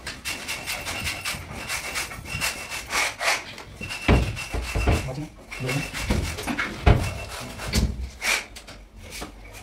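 Hand screwdriver working the hinge screws of a wooden cupboard door: repeated scraping, clicking and squeaking of the screws and hinge metal, with a few heavier knocks as the door is lifted off its hinges, the loudest about seven seconds in.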